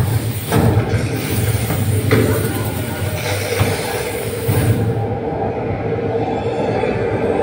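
Roller-coaster ride film soundtrack played through cinema speakers: a steady rumble and rushing noise of the coaster car running along its track. About five seconds in, the hiss drops away and a lower hum carries on.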